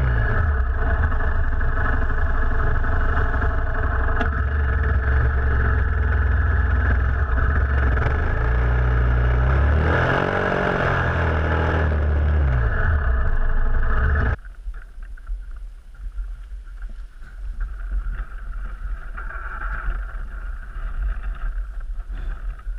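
Motorcycle riding at speed, its engine under heavy wind rush on the microphone; the engine note falls and rises again about ten seconds in. About fourteen seconds in the sound cuts abruptly to much quieter wind buffeting the microphone.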